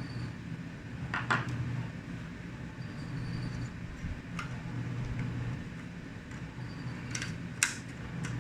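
A few scattered small clicks and taps of hard laptop parts being handled as the hard drive is taken out, the sharpest near the end, over a steady low hum.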